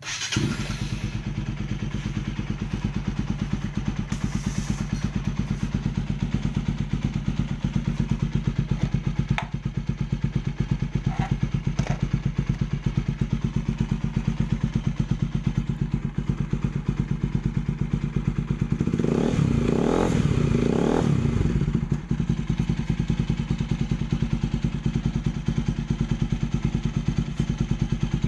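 Motorcycle engine idling through an aftermarket slip-on exhaust with a steady, even pulse. It is blipped three times in quick succession about 19 to 21 seconds in, then settles back to idle.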